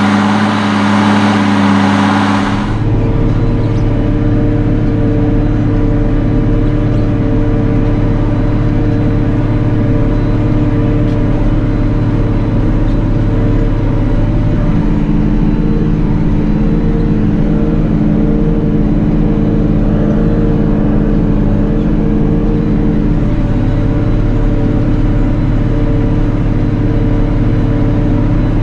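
SAME Titan 190 tractor's six-cylinder diesel engine working steadily under load while pulling a plough. It is heard from outside for the first couple of seconds, then from inside the cab, where it is more muffled, a deep steady drone. The engine note shifts slightly about halfway through and again near the end.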